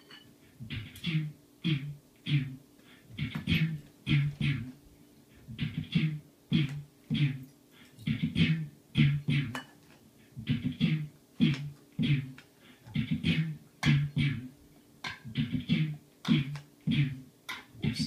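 Beatboxed beat layered through a loop station: vocal bass hums and kick sounds alternating with hissing hi-hat and snare clicks, repeating in a steady groove.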